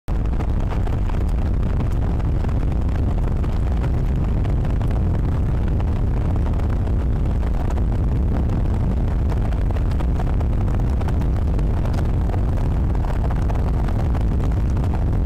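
Steady wind noise buffeting the microphone under a thunderstorm: a low, unbroken rumble with hiss above it.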